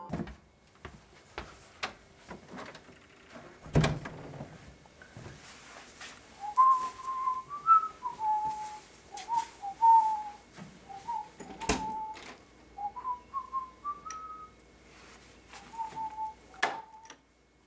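A person whistling a wandering tune that starts about six seconds in, with several sharp knocks of doors being opened and handled.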